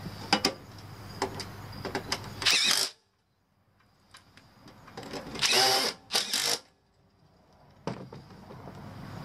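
Cordless drill running in short bursts, driving screws into sheet metal: one burst about two and a half seconds in, then two more close together a little past the middle. Light clicks of screws being handled come in between.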